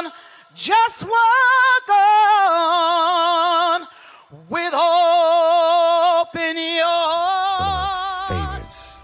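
A woman singing solo with little or no accompaniment, belting long held notes with a wide vibrato in four phrases with short breaths between them; the last note slides slowly down.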